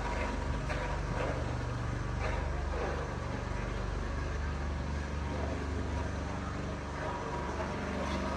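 An engine running steadily, a low hum with a few light knocks over it.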